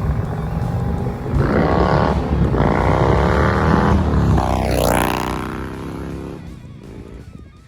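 Indian Thunder Stroke 116 V-twin motorcycle exhaust accelerating hard, its pitch climbing through two gears with a brief break between them. After a quick dip and rise in pitch about five seconds in, the sound fades steadily as the bike pulls away.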